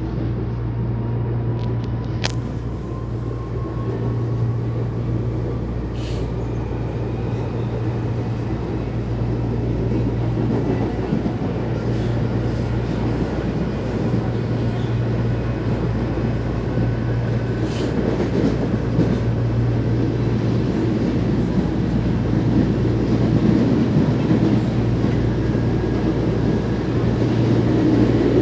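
Passenger train running on the rails, heard from inside the car: a steady low rumble that grows louder toward the end. Over it runs a faint whine that slowly rises in pitch, and three sharp clicks sound, one about 2 seconds in, one about 6 seconds in and one about 18 seconds in.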